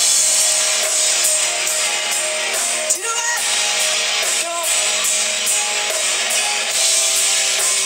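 Live rock band playing, with electric guitar to the fore over a steady beat.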